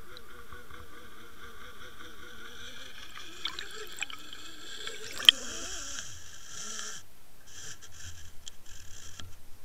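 Underwater sound picked up by a Water Wolf fishing camera being pulled through the water on the line: a steady wavering hum with water noise, and a few sharp knocks against the housing, the loudest about five seconds in. The hum stops about seven seconds in, leaving a quick rhythmic pulsing.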